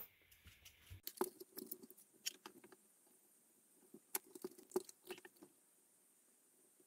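Faint scattered clicks and taps of handling an opened electric shaver's plastic housing and a soldering iron, dying away after about five seconds.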